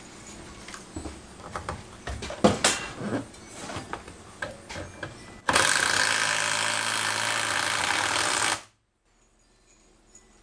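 Cordless drill running for about three seconds as it drives a screw into the wooden header framing, then stopping abruptly. Before it, scattered knocks and clicks of the drill and wood being handled.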